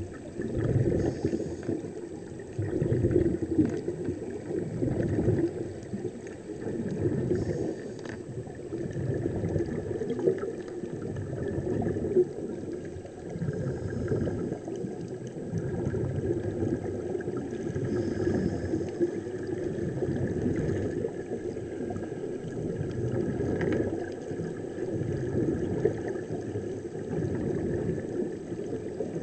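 Muffled underwater bubbling and gurgling in irregular surges: air escaping from surface-fed diving helmets, heard with the microphone under water. A faint steady high whine sits above it.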